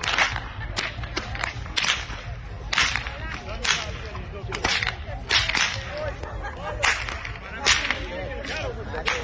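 Long herdsmen's whips being cracked repeatedly, a sharp crack roughly every second, with a low rumble of wind on the microphone underneath.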